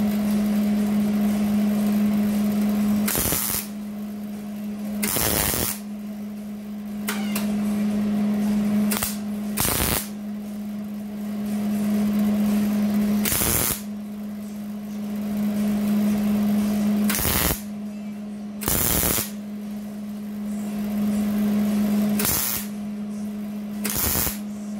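MIG welder laying short stitch welds on thin sheet-metal body panel: about nine brief crackling bursts, each under a second, spaced a few seconds apart. A steady low hum runs underneath throughout.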